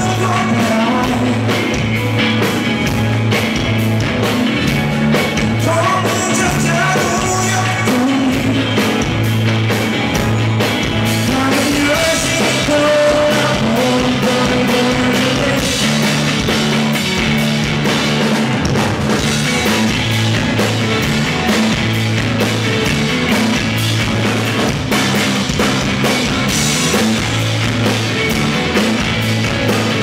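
A live indie rock band playing: electric guitar over a drum kit, with some singing.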